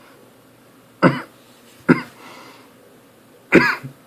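A person coughing and clearing their throat in three short bursts, a reaction to the burning heat of a just-eaten jalapeno pepper coming back.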